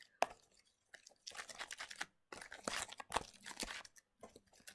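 Homemade glue slime being squished and worked by hand: an irregular run of small wet clicks and crackles, pausing briefly twice.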